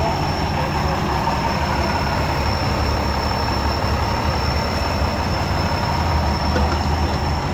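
Diesel engine of a Seagrave fire engine idling steadily, a constant low rumble with a faint high-pitched whine over it.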